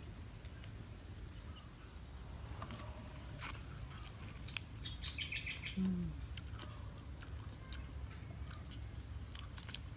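Crunching and chewing of crispy deep-fried chicken feet, with scattered sharp crackling clicks. A bird chirps a quick run of short notes about five seconds in, followed by a brief low falling hum, the loudest moment.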